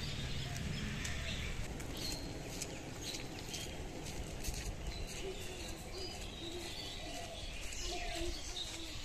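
Faint outdoor morning ambience: scattered short distant bird calls over a low steady rumble, with light footsteps of someone walking on a road.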